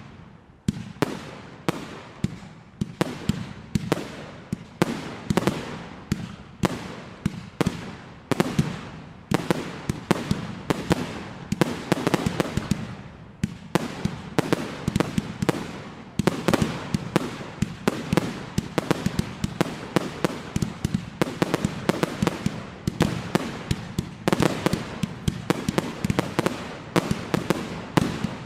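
Fireworks display in full flow: shells bursting in rapid, overlapping bangs and crackles, several a second, over a continuous rumble.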